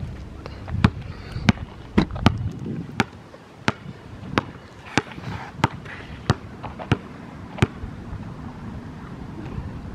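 Basketball dribbled on a hard outdoor court: about a dozen sharp bounces, roughly one and a half a second, that stop near the end as the ball is gathered.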